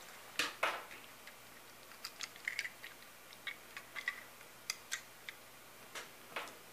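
Light, irregular clicks and taps of two small diecast toy cars being picked up and handled together in one hand, their metal bodies and plastic bases knocking against each other and against fingers.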